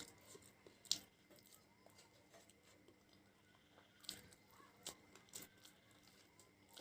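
A person eating: quiet chewing with a few sharp mouth clicks, the loudest about a second in and a cluster around four to five and a half seconds in.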